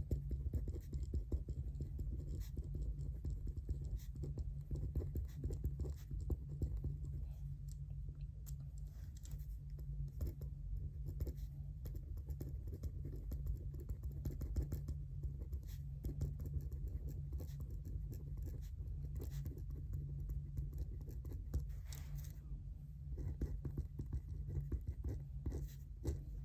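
Writing on paper: a pen or pencil scratching in quick, irregular strokes, over a steady low hum.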